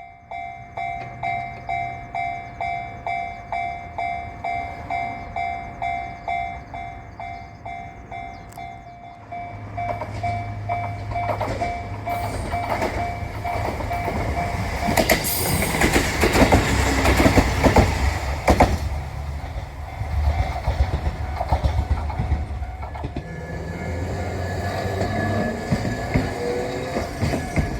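Japanese level-crossing warning bell ringing about twice a second, then stopping. The JR Nanohana express, a diesel train, then passes at speed, its engine hum and wheels clattering over the rail joints loudest in the middle. A rising whine comes in near the end.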